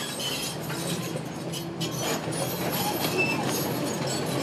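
Crawler bulldozer working: a diesel engine running under steady load, with the steel tracks clanking and squealing and sharp metallic clinks and scrapes as it pushes into wrecked cars.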